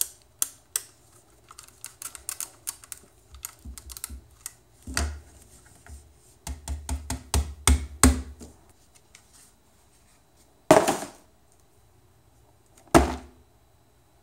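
Irregular clicks and taps of hands fiddling with a small plastic LiPo battery charger and its battery leads, coming in quick clusters. Near the end come two louder, brief handling knocks about two seconds apart.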